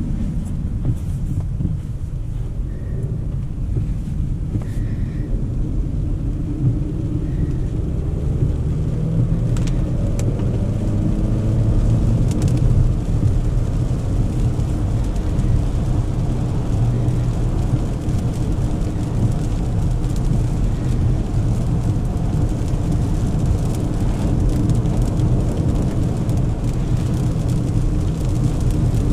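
Cabin sound of a 2024 Volvo XC40 B3's four-cylinder petrol engine pulling away, its note rising in pitch over several seconds, then settling into a steady cruise. A low tyre-and-road rumble from the wet tarmac runs under it throughout.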